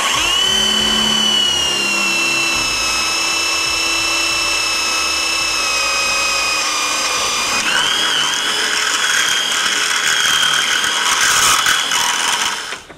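Electric drill running under load, its twist bit boring through the metal rail of a bike rack: a steady high motor whine that sags slightly in pitch, steps up a little about two-thirds of the way through, and stops just before the end.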